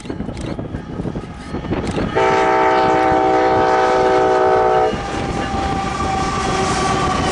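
An Amtrak train's locomotive horn sounds one long chord about two seconds in and holds for about three seconds, the loudest sound here. Around it, Amtrak GE Genesis diesel locomotives, a Union Pacific diesel unit and passenger cars roll past on the rails.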